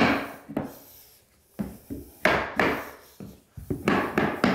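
Rubber mallet knocking an engineered hardwood floor plank, about ten sharp taps at an uneven pace, driving the plank's tongue-and-groove joint tight against the row before it is stapled.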